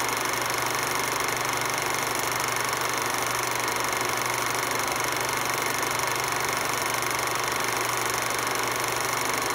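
A steady, unchanging mechanical hum with several fixed tones, including a high whine, over a constant hiss.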